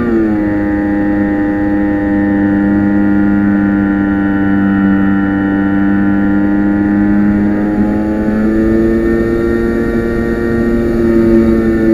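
RC plane's motor and propeller heard from on board, a steady droning whine that drops in pitch right at the start as the throttle eases, then rises slightly about eight seconds in.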